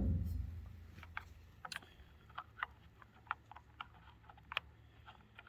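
Faint, sharp clicks and taps at an uneven pace of about one or two a second: small hard parts being handled around a chainsaw just after its fuel tank has been filled.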